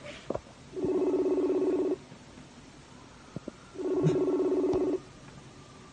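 Ringback tone of an outgoing phone call: a pulsing tone, about a second long, sounds twice, about three seconds apart, with a few faint taps between.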